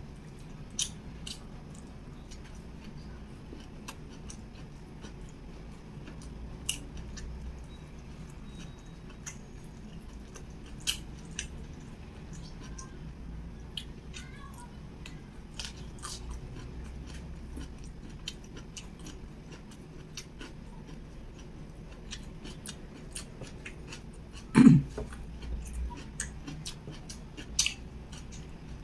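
Close-miked mouth sounds of a person eating sticky rice with beef serundeng and boiled kailan with sambal by hand: chewing with sharp wet clicks scattered throughout. A louder, brief low sound comes near the end.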